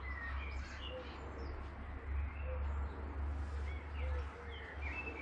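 Birds singing: scattered short high chirps from small birds, with repeated low cooing notes, over a steady low hum.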